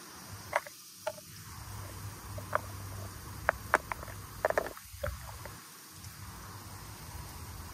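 Wind rumbling on the microphone over a steady hiss, broken by a scattered run of sharp clicks and taps, the loudest between about three and a half and five seconds in.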